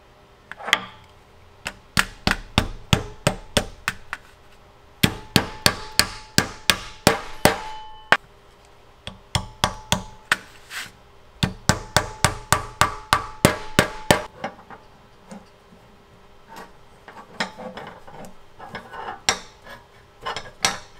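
Small ball-peen hammer tapping brass pins set through a screwdriver's wooden handle scales: quick light knocks in runs of about three or four a second, with a faint metallic ring, then slower, scattered taps in the last few seconds.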